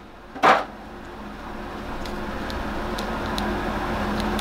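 A short hiss about half a second in, then a steady machine hum with a low drone that slowly grows louder, with a few faint clicks.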